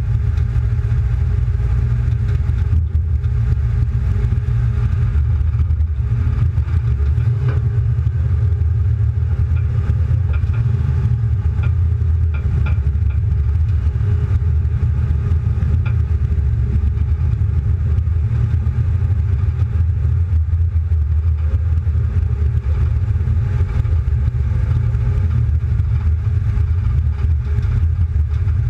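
Steady low rumble of a car engine's exhaust while cruising at low speed and then coming to a stop.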